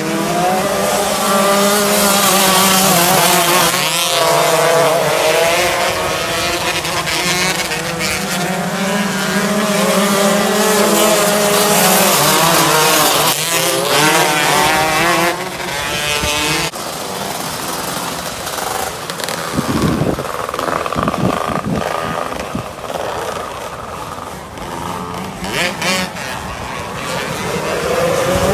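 A pack of 125-class outlaw karts racing on a dirt oval, several small engines revving up and down together in a shifting, overlapping drone. The sound drops somewhat after about a quarter of a minute and rises again near the end.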